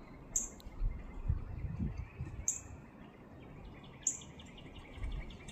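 Songbirds calling: three sharp, high chip notes about two seconds apart, and a fast trill of short repeated notes, about six a second, starting past halfway. A low rumble of wind or handling on the microphone runs in the first half.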